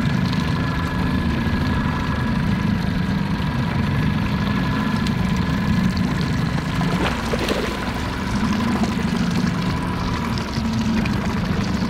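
Boat engine running steadily: a low hum with a thin, steady whine above it.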